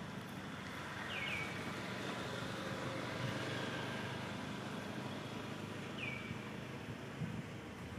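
Steady outdoor background hiss and rumble, with two short, high chirps that fall in pitch, one about a second in and another near the end.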